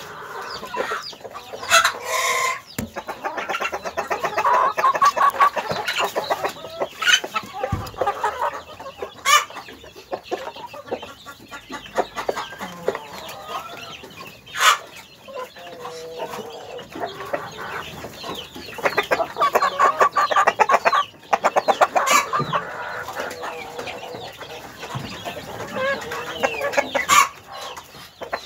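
A flock of chickens clucking close up, in quick runs of calls that swell and fade, with several sharp knocks among them.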